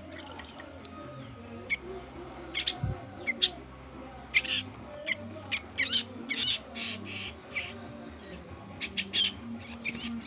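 Young cage songbirds giving short, sharp chirping calls, several a second in irregular runs, typical of nestlings begging while being hand-fed. A low steady hum runs underneath.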